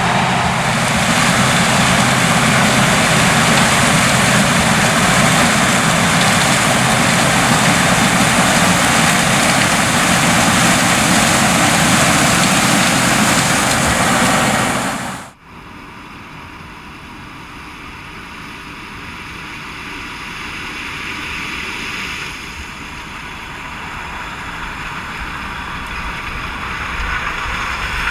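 Claas Lexion 770 TerraTrac combine harvester running while harvesting corn: a loud, steady din of its Mercedes-Benz V8 diesel and threshing machinery. About fifteen seconds in it cuts off suddenly to a much quieter machine sound that slowly grows louder.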